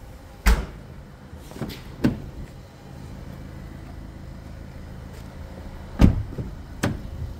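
Doors of a 2014 SEAT Leon being shut by hand: a solid thump about half a second in as the boot lid closes, two lighter knocks around two seconds, then the loudest thump as a rear door is shut about six seconds in, with a lighter knock after it. A steady low hum runs underneath.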